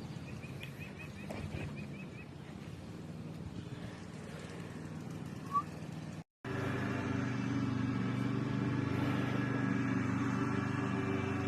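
Outdoor ambience with a quick run of about nine high bird chirps near the start and a short high tone about five and a half seconds in. After an abrupt cut, background music with sustained tones starts just after six seconds and continues.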